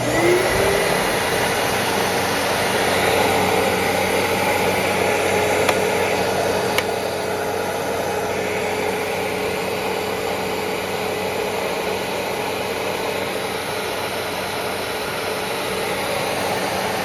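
10-amp Fantom Fury vacuum cleaner switched on and running, its freshly rebuilt brush roll turning on new bearings. The motor spins up in the first half second to a steady whine under a loud, even rush of air, and holds steady.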